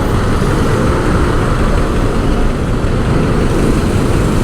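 Steady rumble of city street traffic, a continuous noisy wash without distinct events.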